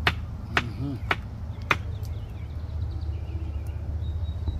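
Open wood cooking fire crackling, with four sharp pops in the first two seconds over a steady low rumble.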